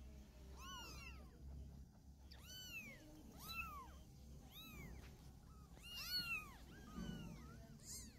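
Young kittens mewing over and over in short, high-pitched calls that rise and fall, about one a second, bunched together about six seconds in.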